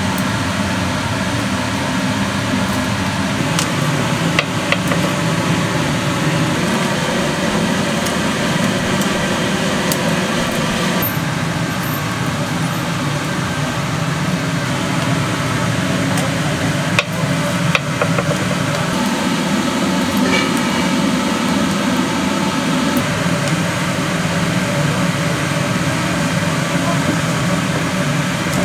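Steady mechanical running noise, with faint background voices and a few sharp clinks.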